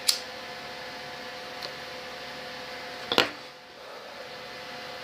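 Steady electrical hum with two faint constant tones, broken by a sharp click right at the start, a faint tick, and a louder click or knock a little past halfway.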